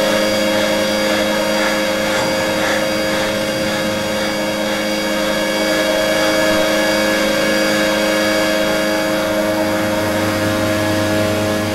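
A loud, steady droning hum of several held tones that does not change.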